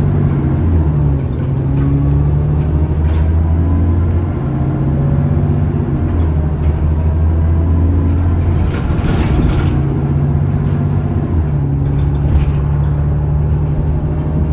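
Alexander Dennis Enviro 400 double-decker bus running, a steady low engine drone that steps in pitch several times as the bus pulls and changes gear. A faint high whine comes and goes over it, and there is a short hiss about nine seconds in.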